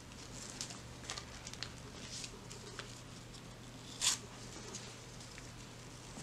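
Faint rustling and small clicks of nitrile-gloved hands handling a plastic lubricant sachet while lubricating a nasopharyngeal airway, with one louder crinkle about four seconds in.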